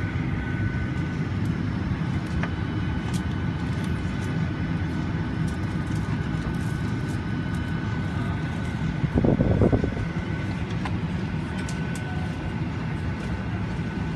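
Steady drone of a Boeing 737's cabin air system in the passenger cabin, with a faint steady whine and scattered light clicks. A brief louder noise comes about nine seconds in.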